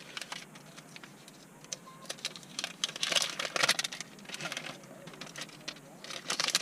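Short bursts of light, clicky jingling and rattling, like small hard objects being swung, the loudest bunch about three seconds in and more near the end.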